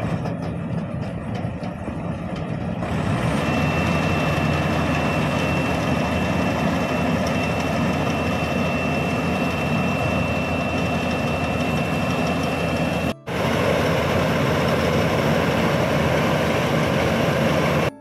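Maxxi Bimo combine harvester's diesel engine running steadily, getting louder about three seconds in and staying there, with a thin steady high tone over it for much of the time. The sound cuts out for an instant about thirteen seconds in, then the engine runs on.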